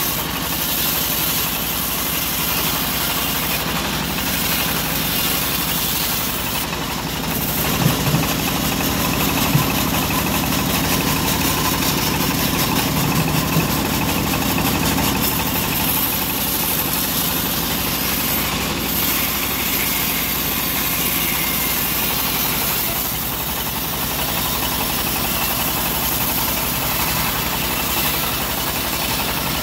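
Homemade band sawmill running steadily, its blade cutting lengthwise through a teak log, with a constant machine drone.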